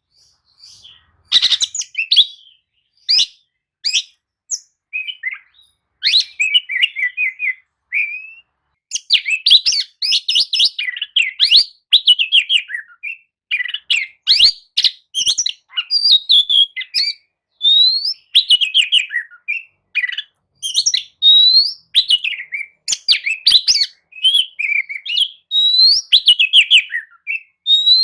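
Oriental magpie-robin singing a varied song of clear whistles, rising notes and quick falling phrases. It comes in short bursts at first and runs almost without a break from about nine seconds in. This is a lure song ('pancingan') used to make a sluggish magpie-robin answer and sing.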